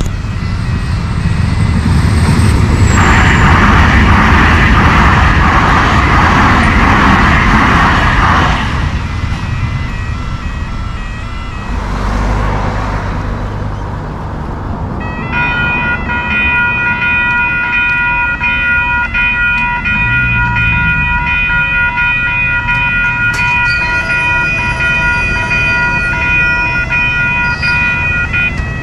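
A train passing the crossing, a loud rushing run for the first eight seconds or so that then fades. About fifteen seconds in, the level crossing's warning bells start up and ring steadily as the lights flash and the boom gates come down.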